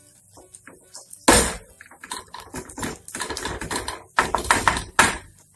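A spatula scraping and tapping on a flat dosa pan as masala topping is mixed and spread over the dosa: irregular clicks and scrapes, a sharp knock about a second in, and a flurry of quick taps after four seconds.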